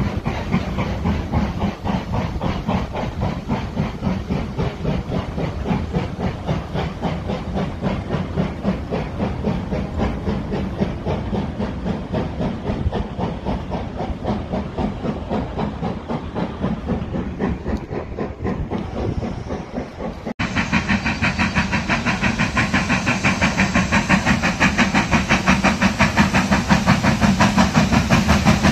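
Steam locomotive 75014, a two-cylinder BR Standard Class 4 4-6-0, exhausting in a steady, even run of chuffs as it pulls away. About twenty seconds in, a sudden cut brings a louder run of chuffs that keeps growing as the engine approaches.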